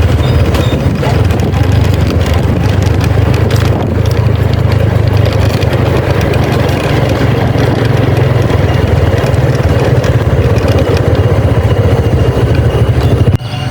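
A vehicle running on the road: a loud, steady low rumble of engine and road noise, which cuts off suddenly near the end.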